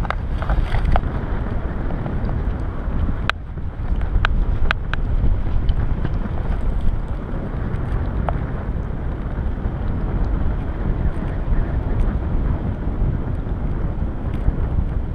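Wind rushing over the microphone in paraglider flight: a steady low buffeting rumble, with a few sharp ticks scattered through it.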